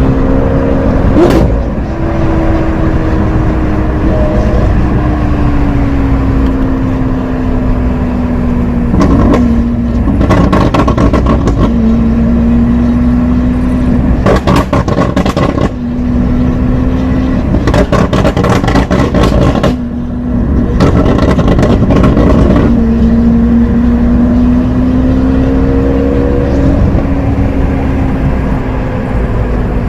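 Lamborghini Aventador SV's 6.5-litre V12 with a Capristo exhaust, running at low, fairly steady revs that drift slowly up and down. Several bursts of sharp exhaust crackling come in the middle stretch.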